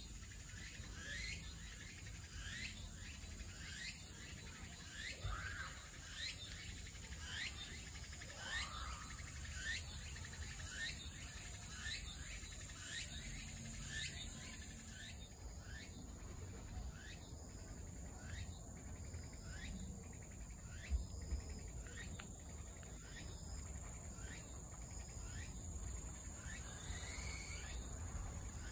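Insects calling: a long run of short, high, falling chirps, about one and a half a second, joined about halfway by a steady high buzz. Under them is a faint low rumble, with one soft thump about two-thirds of the way through.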